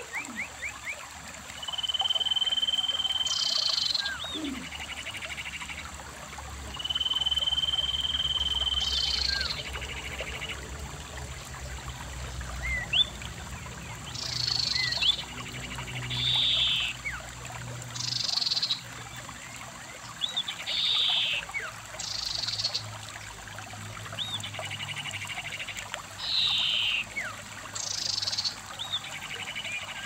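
A shallow stream running over rocks, with repeated high-pitched animal calls over it: two long steady notes in the first third, then short buzzy calls and brief chirps every second or two.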